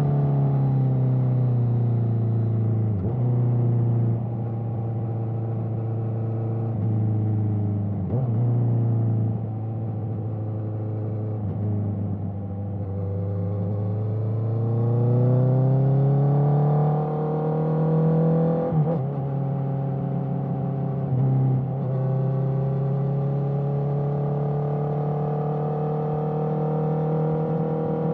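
Honda CBR650R inline-four with an Akrapovic exhaust, under way. Its engine note sinks slowly for about twelve seconds, then rises and holds steady, broken several times by short, sharp dips in pitch.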